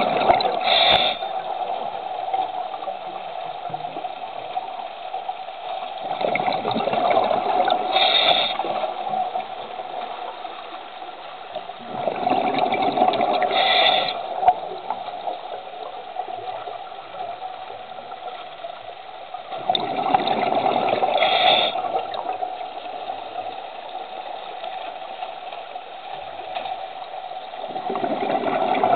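Scuba diver breathing underwater through a regulator: bursts of exhaled bubbles rushing and gurgling roughly every seven seconds, each ending in a short hiss, over a steady hum.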